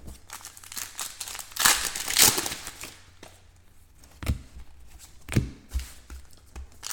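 Trading card pack wrappers crinkling and tearing as packs are opened, with a few sharp taps later on as cards are handled.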